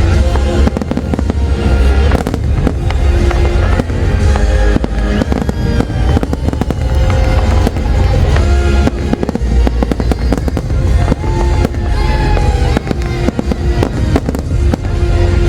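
A fireworks display going off non-stop: a dense, rapid run of bangs and crackles over a heavy low rumble, with music playing alongside.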